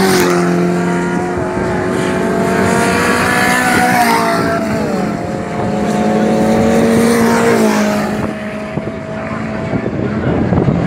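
Race car engines running hard on a dirt oval. The engine pitch climbs steadily, drops sharply about four seconds in, climbs again and drops once more near eight seconds.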